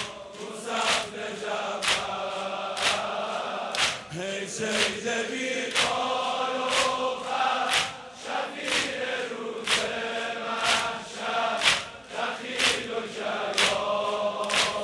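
A large crowd of male mourners chanting a noha lament in unison, with sharp rhythmic strikes about once a second, typical of chest-beating (sineh-zani) in time with the chant.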